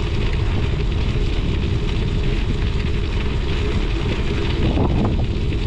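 Steady rush of wind buffeting the microphone, mixed with a bicycle's knobby tyre rolling over lake ice.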